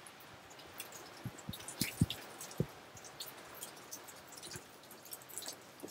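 Rain dripping around a sailboat's cockpit: faint, irregular ticks and drips, with a few louder plops between about one and three seconds in.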